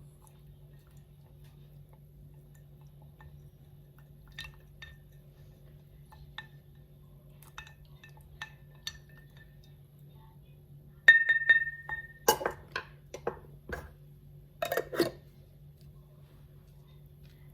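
Glassware clinking in a kitchen. There are a few small ticks, then about eleven seconds in one clear ring of struck glass that lasts about a second, followed by a quick flurry of clinks and knocks.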